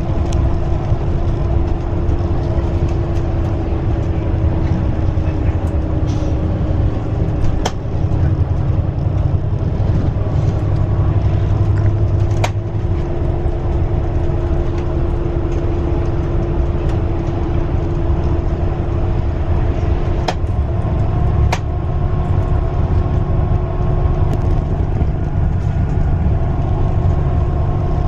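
Riding inside a bus under way: steady engine drone and road rumble, with a few small rattles and clicks from the cabin. The engine note shifts slightly about two-thirds of the way in.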